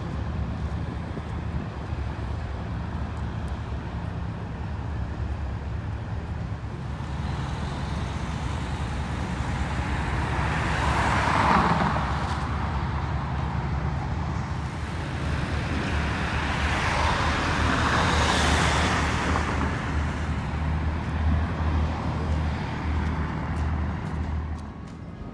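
Road traffic with cars passing by: two pass-bys swell and fade, about eleven and eighteen seconds in, over a steady low engine hum.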